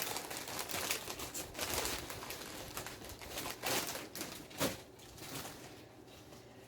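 Plastic tortilla chip bag crinkling and rustling as it is handled, with irregular light clicks and knocks that die down about five seconds in.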